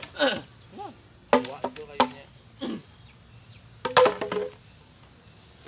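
A tool striking bamboo during fence building: a few sharp, ringing knocks about a second and a half in and another cluster about four seconds in. Short voice sounds fall between them, over a steady high insect drone.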